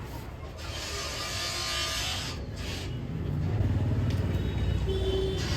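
A motor vehicle going by, its low engine rumble growing louder about three seconds in, with a hiss over it.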